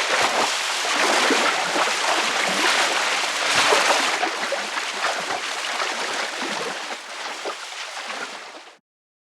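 Water sound effect of continuous churning, splashing water. It starts abruptly, is loudest about three to four seconds in, then tapers a little and cuts off shortly before the end.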